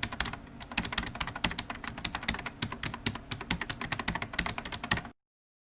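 Rapid keyboard typing: a dense run of irregular clicking keystrokes, several a second, that cuts off abruptly about five seconds in.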